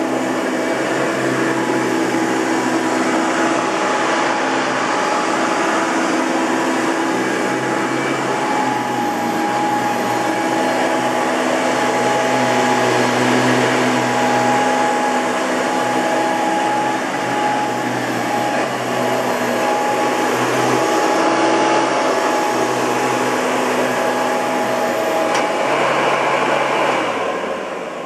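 1997 Hoover Dimension Supreme upright vacuum cleaner running on carpet, a steady motor whine with several held tones over the airflow hiss; its dry front motor bearing gives it a tornado-siren-like sound. Near the end it is switched off and the motor winds down, falling in pitch.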